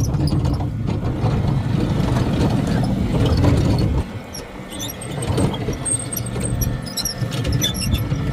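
John Deere X350 lawn tractor running as it tows a train of homemade carts; the sound drops off sharply about halfway through, then builds up again.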